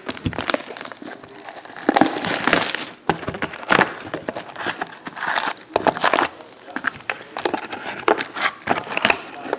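Crinkling and rustling of trading-card pack wrappers being opened and handled, made up of irregular rustles and sharp crackles.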